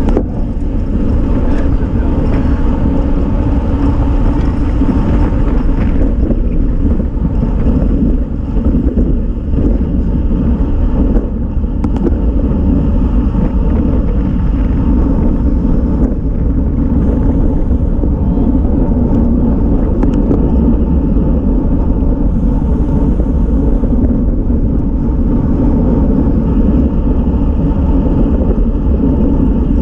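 Wind rushing over an action-camera microphone on a road bicycle at racing speed: a steady, loud, low rumble.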